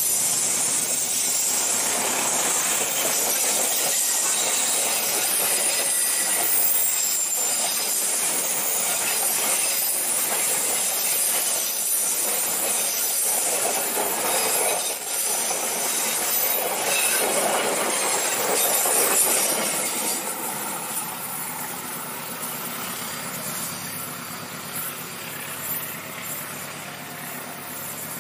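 Executive-class passenger coaches of a train rolling past at close range, steel wheels running over the rails in a steady, loud rumble. About two-thirds of the way through, the noise begins to fade as the last coaches pass.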